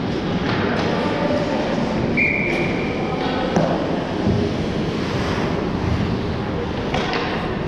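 Ice hockey game play: skates scraping the ice with scattered clacks and thuds of sticks, puck and boards over a steady rink rumble, and a short high squeal about two seconds in.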